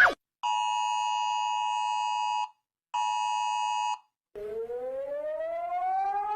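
Emergency Alert System-style alarm: two long, steady two-tone beeps near 900 Hz, the first about two seconds and the second about one. After a short pause comes a siren that rises slowly in pitch and then falls.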